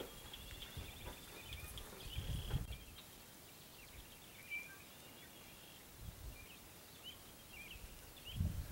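Outdoor ambience of small birds calling faintly with short chirps, over low irregular rumbles that swell about two seconds in and again near the end.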